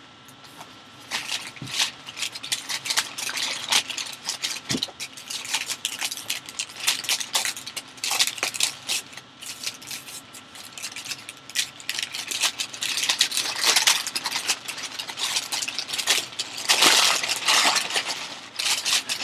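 Packing paper being pulled out and crumpled while a football is unwrapped: continuous irregular crinkling and crackling, loudest near the end.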